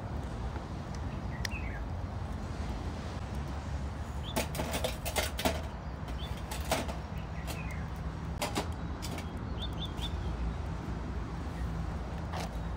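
Metal griddle trays being set down and shifted on the steel top of a portable wood stove: a run of clanks and knocks in the middle, over a steady low rumble.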